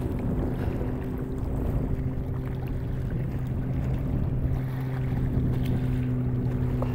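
A steady motor drone holding one constant pitch with its overtones, under a low rumble of wind on the microphone.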